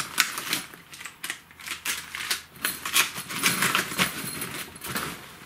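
Handling noise from a fishing bag's side pocket: the nylon fabric rustles and plastic lure packets crinkle as they are pushed in, with irregular clicks and taps throughout.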